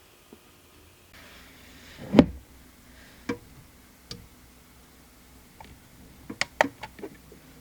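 Small knocks and clicks of gel polish bottles and nail tools being handled and set down on a table. The loudest is a single knock about two seconds in, with a few scattered clicks after it and a quick run of clicks near the end.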